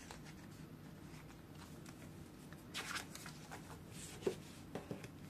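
Faint rustling of a paper sticker sheet and Romanian polymer banknotes being handled on a tabletop, with a brief louder rustle about three seconds in and a small click just after four seconds.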